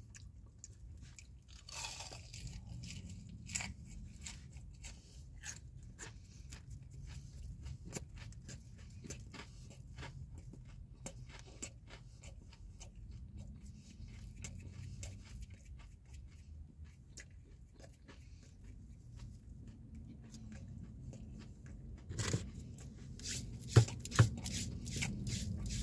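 A person chewing a bite of lemon pepper chicken wing: a steady run of small crunches and wet mouth clicks. Underneath is a low steady hum, and there are a few louder crunches near the end.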